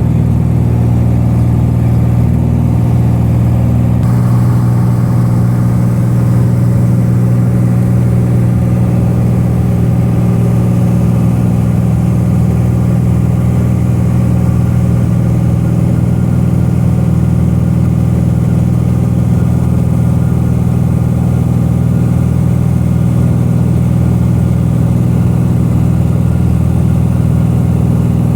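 Cessna 182's piston engine and propeller running steadily in flight, a constant low drone with a slight shift in tone about four seconds in.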